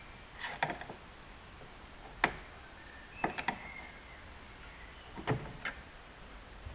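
Clicks and knocks from a screwdriver working the clip and ball-joint end of a door gas strut in a tractor cab. There are several short sharp clicks in small clusters, the loudest about two seconds in.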